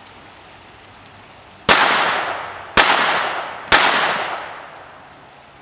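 Three shots from a Beretta Model 21A pocket pistol in .22 Long Rifle, about a second apart, each followed by a fading echo.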